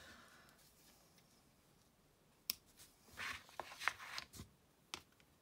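Small craft scissors snipping twine ends, with hands rustling the twine and paper: a few sharp clicks and short rustles in the second half after a quiet start.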